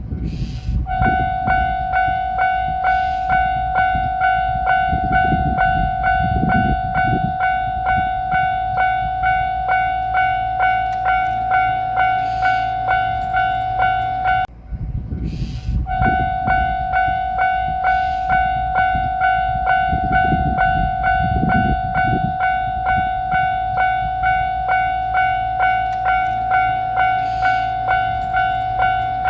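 A Japanese railway level crossing's warning bell ringing 'kan-kan' at about two strikes a second, with one steady pitch. It cuts off for a moment about halfway through and starts again, over a low rumble.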